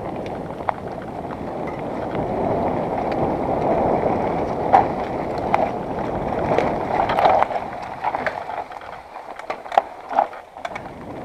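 Mountain bike descending rough dirt singletrack: wind rushing over the camera's microphone, with the tyres rumbling and sharp knocks and rattles from the bike over rocks and roots. The wind noise eases about eight seconds in, leaving mostly the clicks and rattles.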